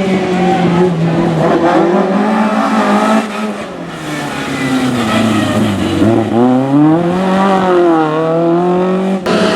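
Rally car engine at high revs, easing off about three seconds in, then dropping in pitch near six seconds and climbing again hard as the car accelerates away.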